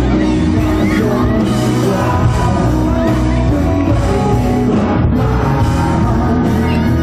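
Live rock band playing loudly, with electric guitar, drums and singing.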